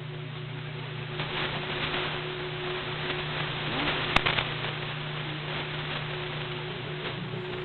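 Droning ambient soundscape: a steady low electrical-sounding hum under a crackling, hissing static, which grows louder in the middle. There is one sharp click about four seconds in.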